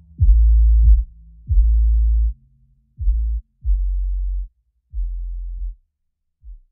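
Electronic background music: a series of deep bass notes, each starting with a quick drop in pitch, growing quieter and shorter until they stop near the end.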